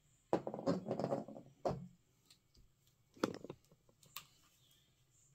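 Small hard-plastic action figure parts clicking and rattling as they are handled: a quick flurry of clicks in the first two seconds, a shorter cluster a little past the middle, and one sharp click soon after.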